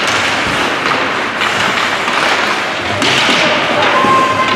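A couple of sharp thuds over a loud, steady, noisy din: one right at the start and another about three seconds in.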